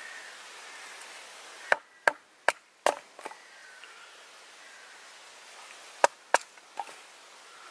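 A wooden baton striking the spine of a bushcraft knife to split a short length of wood into kindling: four sharp knocks in quick succession, a pause of about three seconds, then three more near the end.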